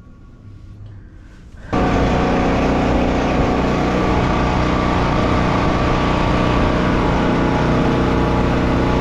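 Engine running steadily at a constant speed, coming in abruptly about two seconds in.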